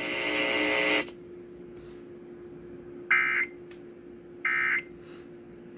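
Emergency Alert System end-of-message data tones over broadcast radio: short, shrill warbling data bursts, two of them about a second and a half apart, following a buzzy sustained tone that stops about a second in, over a faint steady hum.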